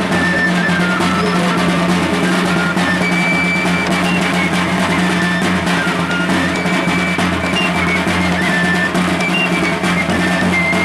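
A small flute playing a high melody of short held notes over two large double-headed drums beaten with sticks in a steady, continuous rhythm: a traditional Amazonian flute-and-drum street band.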